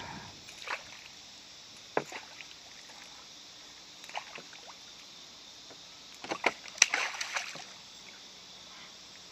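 A hooked gar thrashing at the surface beside the boat: scattered sharp splashes, with the busiest stretch of splashing about six to seven and a half seconds in.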